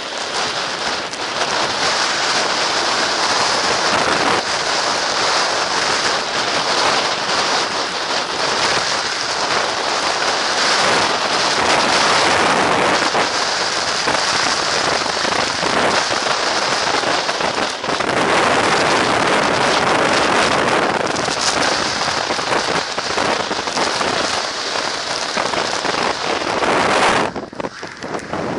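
Storm-force wind in a mountain snowstorm blowing across an action camera's microphone: a loud, dense rushing noise that swells and eases with the gusts, dropping briefly about a second before the end.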